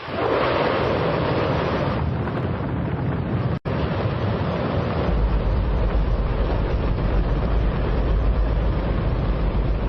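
Space Shuttle main engine, a liquid hydrogen and oxygen rocket engine, on a static test firing: the noise comes in suddenly and is the loudest sound you could possibly conceive. A deep rumble grows heavier about five seconds in. The noise cuts out for an instant just under four seconds in.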